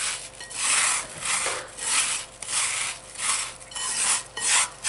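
Fingers crushing and rubbing microwave-browned shredded coconut against a plate: a repeated dry, crunchy rasping, about two strokes a second.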